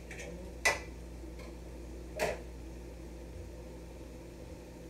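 Two sharp knocks of a cooking utensil against a frying pan, about a second and a half apart, the first louder, over a steady low hum.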